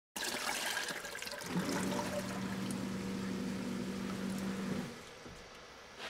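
Upflush toilet flushing, water rushing through the bowl. About a second and a half in, its grinder pump starts with a steady hum. The hum cuts off just before five seconds, leaving a quieter trickle as the bowl settles.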